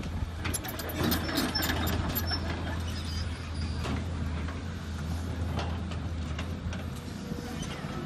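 Volvo crawler excavator's diesel engine running steadily as the machine swings and lowers its boom and bucket. A cluster of clanks and short squeaks from the bucket and arm linkage comes in the first couple of seconds.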